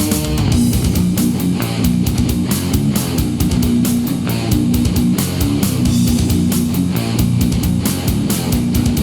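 Death metal: a distorted guitar riff over fast, dense drumming, from a 1990s cassette recording.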